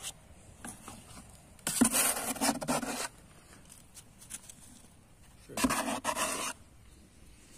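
Two bursts, a second or so each, of soil scraped up and poured with a plastic hand scoop into a plastic grafting sleeve, a gritty rustling patter.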